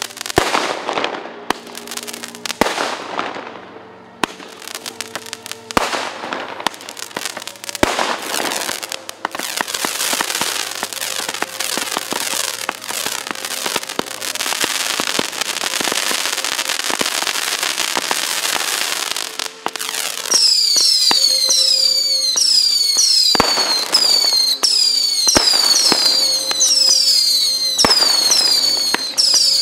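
Fireworks: sharp bangs trailed by crackling, then a long, dense stretch of crackle. In the last third, rapid high falling whistles repeat over further bangs.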